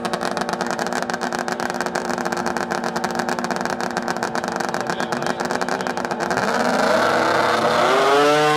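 Racing snowmobile engine running steadily at high revs, then, about six seconds in, an engine accelerating hard with its pitch rising and its sound growing louder.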